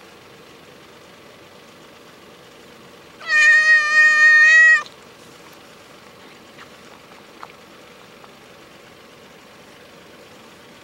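A hungry ginger tabby stray cat gives one long, steady meow lasting about a second and a half, about three seconds in.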